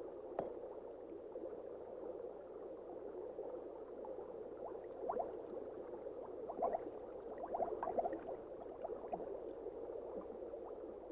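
Water bubbling and gurgling in a mountain stream: a steady watery hiss with small bubble pops that come thicker about halfway through.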